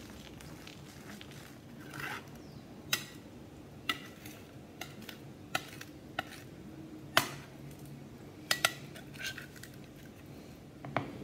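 Steel knife blade scraping and tapping on a glass slab, gathering up mulled watercolour paint: a run of sharp clicks and short scrapes, the loudest about seven seconds in, over a steady low hum.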